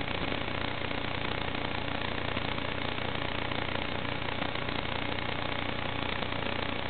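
Steady, hiss-laden buzz of an FPV quadcopter in flight, carried on the analog video link's audio and cut off above about 4 kHz.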